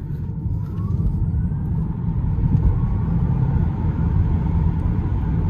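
Tesla Model 3 Performance driving at speed: a steady low rumble of tyres and road, with a faint rising whine about a second in.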